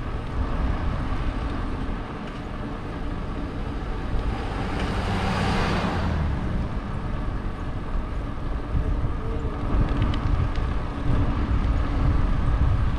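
A pickup truck passing close by in the opposite direction: its tyre and engine noise swells and fades between about four and six seconds in. Underneath, a steady low wind rumble on the microphone of a moving bicycle.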